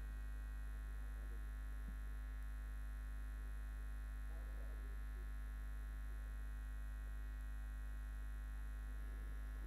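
Steady low electrical mains hum with a set of fixed tones above it, and faint indistinct voices in the background now and then.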